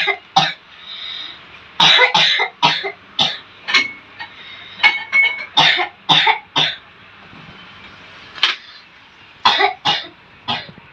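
A person coughing repeatedly: a dozen or so short coughs, some in quick runs, with pauses of a second or two between runs. It is an unusual, persistent cough, which the healer ascribes to a jinn disturbance that makes the throat feel tied.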